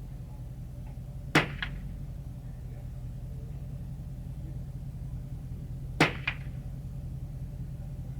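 Two shots from a Savage Lakefield 64B semi-automatic .22 rifle, about four and a half seconds apart. Each sharp crack is followed a quarter second later by a fainter crack.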